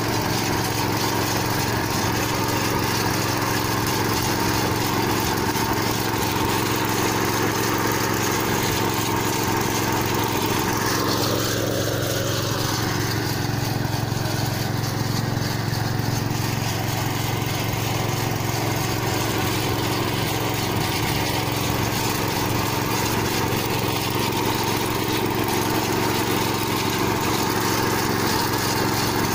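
Tractor engine running steadily while pulling a three-row corn planter across dry ground.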